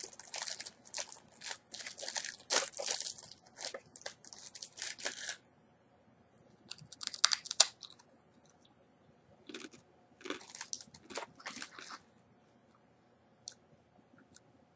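Crisp crackling and crunching from a cream-chestnut senbei rice cracker being bitten and chewed: a dense run of crackles for the first five seconds, then separate crunchy bursts with quiet pauses between them.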